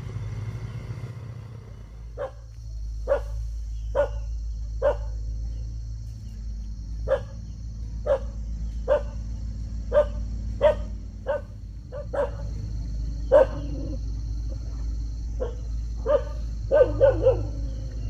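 A dog barking repeatedly, about once a second, with a quick run of barks near the end, over a steady low hum.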